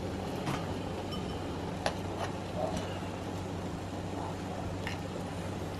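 A stainless steel pot of water boiling with paddle crabs in it, bubbling steadily over a low steady hum, with a few faint clicks.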